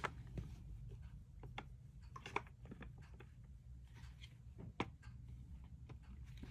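Scattered light clicks and knocks of a stroller's rear wheel axle and brake assembly, plastic and metal parts being handled and fitted into the frame, with a couple of sharper knocks midway and again later, over a faint low hum.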